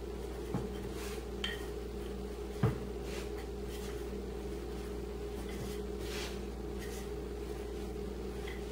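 Wooden rolling pin working stiff, dry dough across a floured board: soft rolling strokes and a few light knocks, the loudest about two and a half seconds in, over a steady background hum.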